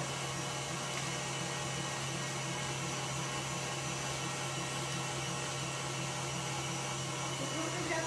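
Stand mixer running steadily, a constant motor hum with a whirring hiss, as it whips meringue.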